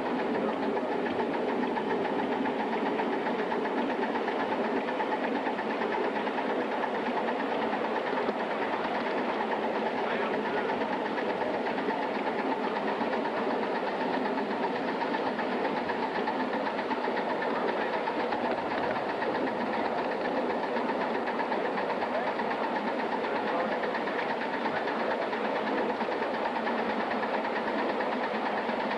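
Steady, even mechanical noise from a hand-built live-steam Atlantic-type locomotive during its first steaming, with no distinct beat.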